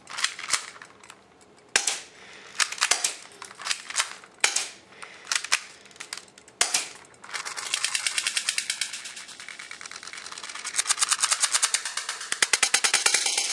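Toy guns shooting: sharp single shots with irregular pauses, then from about seven seconds in a rapid, even stream of shots, like a toy gun on full automatic.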